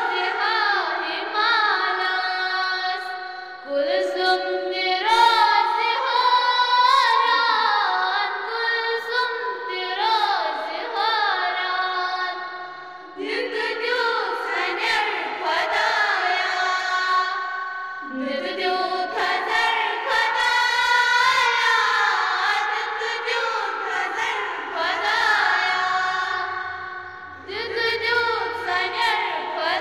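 Young voices singing a slow assembly prayer in unison, in long phrases with short breaks between them.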